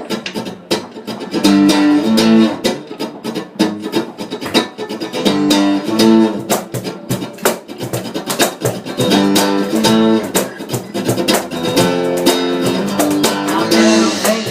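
Guitar playing the instrumental intro of a song: strummed chords in a steady, driving rhythm.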